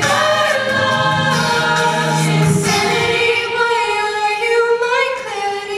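A cappella mixed-voice ensemble singing into microphones, holding sustained chords with no instruments. The low voices drop out about halfway, and the upper voices hold the song's closing chord until it tapers off near the end.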